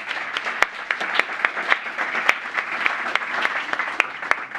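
Audience applauding, many hands clapping together, tailing off near the end.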